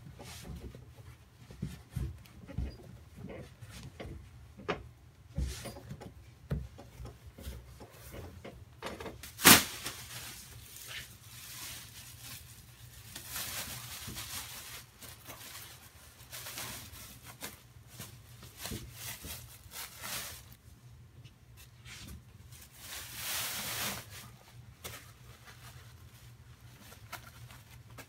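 Foam cushion being worked into a fabric cover by hand: scattered thumps and scuffing of fabric and foam, with one sharp knock about nine seconds in. Plastic bag rustling comes in bursts, twice, as the foam is slid into the cover inside a plastic bag.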